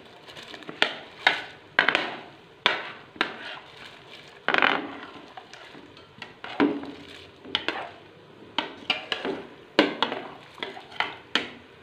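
Soaked rice being tipped from a plate into a steel pot of boiling water, with a string of irregular clinks and taps of crockery against the metal pot.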